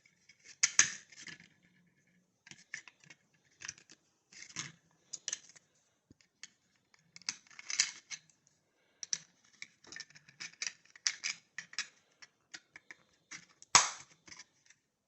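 Plastic clicks, scrapes and rattles of handling a small remote control and fitting AAA batteries into it, irregular and scattered, with one loud sharp click near the end.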